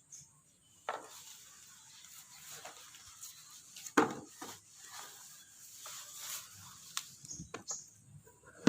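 Knife peeling a fresh aloe vera leaf: soft scraping and slicing through the skin, broken by a few sharp knocks, the loudest about four seconds in.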